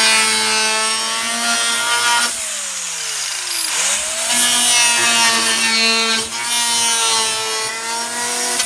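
Small Dremel power saw running, its motor whining steadily as the blade cuts through the plastic of a 5-gallon bucket, with a rasping cutting hiss. About two seconds in, the motor slows with a falling pitch, then speeds back up about a second and a half later and carries on cutting.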